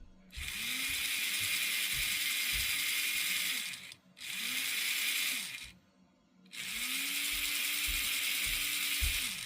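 HO-scale model locomotive's electric motor and worm gearbox running in three short bursts, each spinning up with a rising whine and winding down as power is cut, with a gritty gear noise over it. It is a test run of the rebuilt drive, freshly greased with lithium grease.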